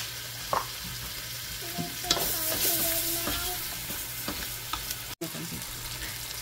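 Diced tomato, onion, garlic and leek sizzling in hot oil in an enamel pot while a wooden utensil stirs them, with light scrapes and taps against the pot. The sizzle grows louder about two seconds in.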